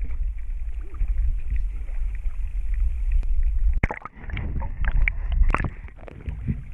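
Shallow river water sloshing around a handheld action camera as someone wades, heard as a steady low rumble. About four seconds in, the camera dips to the water and a couple of seconds of sharp splashes, clicks and gurgling follow before the rumble returns.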